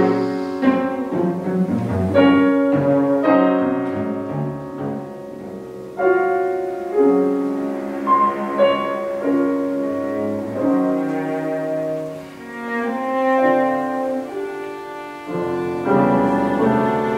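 Cello and grand piano playing a classical duo live: the cello bows long held notes over piano chords, the music swelling and easing in volume, growing fuller near the end.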